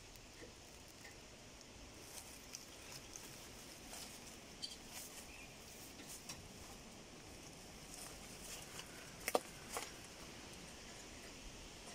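Faint scattered crackles and clicks of footsteps on dry leaf litter, with a sharper click about nine seconds in and another just after.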